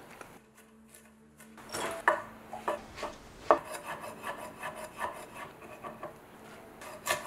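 Chef's knife chopping shiitake mushrooms on a wooden cutting board: quick taps of the blade on the board, about three a second, starting a little under two seconds in.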